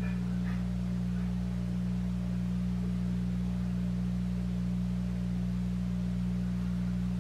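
A steady low hum made of several fixed low tones, unchanging throughout. A few faint soft touches, the watercolour brush on the paper, come in the first second or so.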